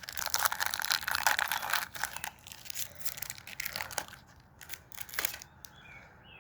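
Foil trading-card pack wrapper being torn and crinkled: dense crackling for the first couple of seconds, then a few scattered crinkles and clicks.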